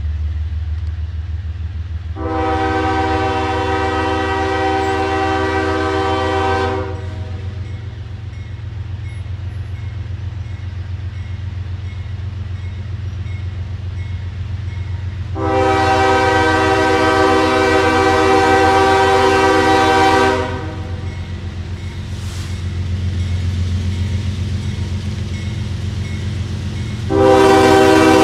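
Diesel locomotive's multi-tone air horn blowing for a grade crossing: two long blasts of about five seconds each, then a shorter blast near the end, over a steady low rumble.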